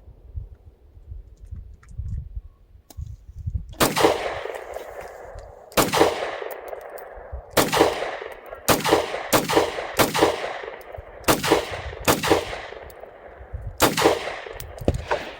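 Taurus G3C 9mm compact pistol fired nine times in an uneven, deliberate string starting about four seconds in, each shot sharp and loud with a short ringing echo.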